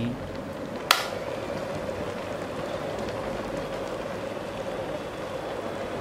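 Water at a rolling boil in a stainless-steel Prestige 1.7-litre electric kettle: a steady bubbling hiss, with one sharp click about a second in.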